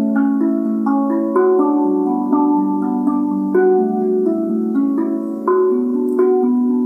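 Rav Vast steel tongue drum tuned to B Kurd, played by hand in a slow melody. Notes are struck about twice a second, and each rings on and overlaps the next.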